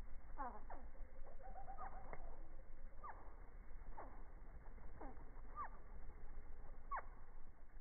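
Hummingbird chirps in slowed-down audio, heard as a series of low falling calls every half second to a second, with a short run of quick repeated notes about a second and a half in, over a low steady hum.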